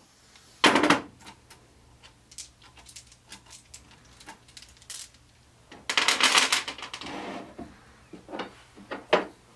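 Loosened steel ring-gear bolts being picked out of a differential carrier by hand: small metal clicks and rattles. There is a brief loud clatter under a second in and a longer, louder clatter of about a second and a half near the middle.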